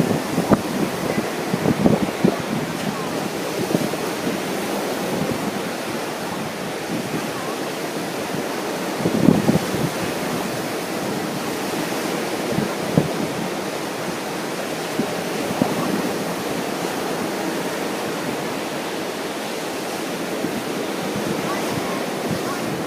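Ocean surf washing steadily on the beach, with gusts of wind buffeting the microphone a few times, most strongly near the start and about nine seconds in.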